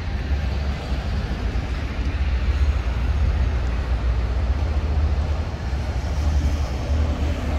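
Steady low rumble of outdoor background noise with no distinct event in it.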